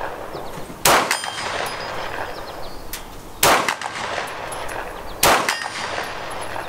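Three shots from a Canuck Hi-Power 9mm pistol, spaced about two seconds apart. After each shot comes the ringing ping of a steel target being hit.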